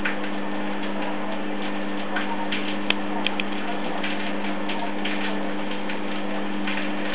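Scattered soft clicks of a Fischer's lovebird chick's beak working at a feeding syringe as it takes hand-rearing formula, a few sharper ones a bit under three seconds in, over a steady low hum.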